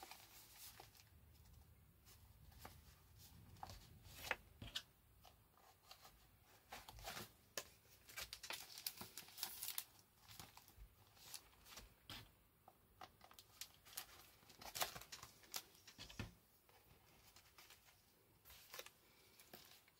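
Faint rustling and light tapping of paper and card pages being handled and shifted into place, with scattered short clicks and a few louder rustles.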